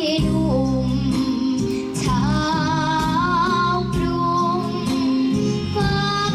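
A young girl singing a Thai luk thung song into a microphone over instrumental backing music, her voice wavering on held notes.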